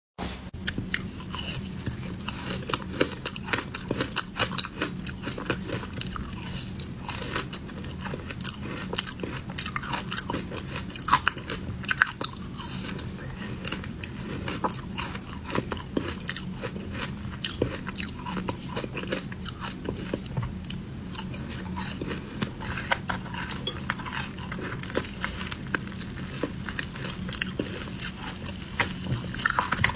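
Close-up crunching and chewing of ice dusted with matcha powder: dense, irregular crisp crunches as the ice is bitten and broken between the teeth, over a low steady hum.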